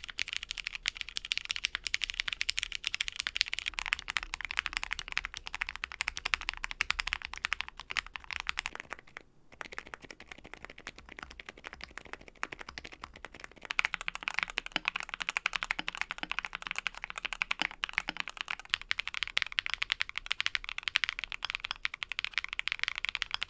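Fast, continuous typing on custom mechanical keyboards, a dense run of key clacks. They include an Akko MOD007 PC with Ceptify Rooster switches and a KBD67 Lite R2 with Cream Soda switches. The typing breaks off briefly about nine seconds in, and it gets louder about fourteen seconds in as another board takes over.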